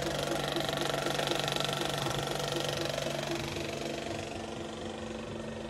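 35mm film projector running, its mechanism giving a steady, evenly repeating clatter. The sound grows quieter about three seconds in.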